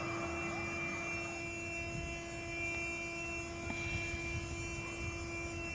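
A steady hum on one held pitch, over a low, noisy background.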